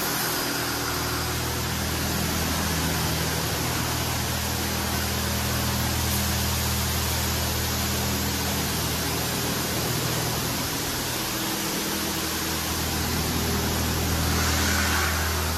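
PDQ LaserWash M5 touchless car wash on its high-pressure pass: water jets from the gantry arm hiss steadily against the car as the arm travels around it. A steady low hum of the wash machinery runs underneath.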